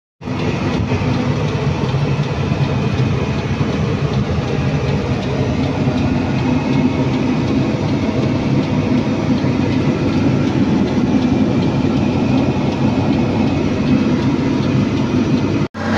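Large Caterpillar hydraulic excavator's diesel engine running steadily, heard close up from the machine's deck. The sound cuts out for an instant near the end.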